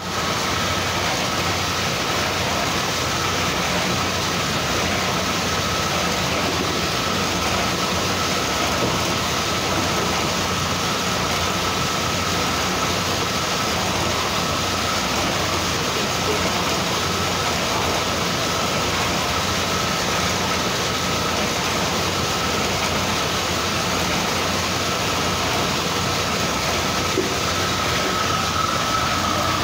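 Screw-type oil expeller pressing mustard seed, running with an even mechanical din and a thin, steady whine.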